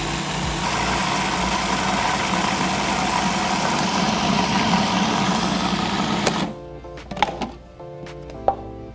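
Cuisinart food processor motor running steadily while olive oil is poured in, blending pesto into a paste. It cuts off suddenly about six and a half seconds in, leaving background music.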